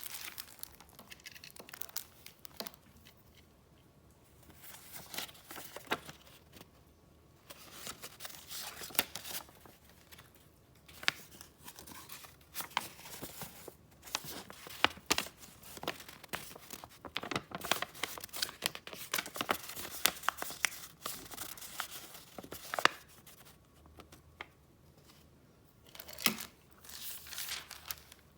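Paper and gift wrapping handled close up: crinkling and rustling with many short, sharp crackles, coming in bursts with brief pauses between.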